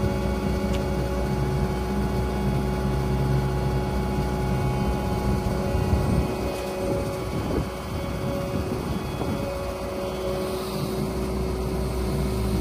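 Takeuchi TL12 compact track loader's diesel engine running at steady revs while its hydraulic loader arms lift the mulcher head, with a few knocks about halfway through.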